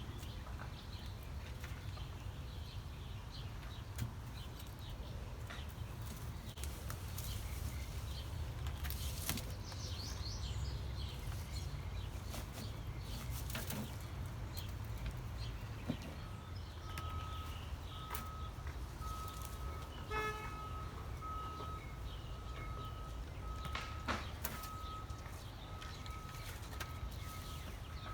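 Hands digging through potting soil in a potato container, with soft scrapes and rustles over a low steady rumble. Birds chirp now and then, and about halfway through a short high beep starts repeating, roughly one and a half times a second.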